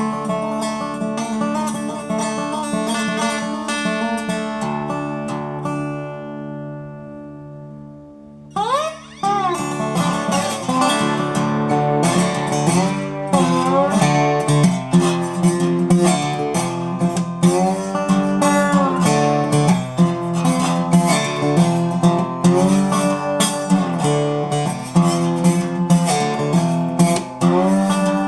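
Solo acoustic guitar playing: a chord is left ringing and fades away, then about eight seconds in the playing comes back with notes sliding upward and settles into a rhythmic riff with sharp percussive strums.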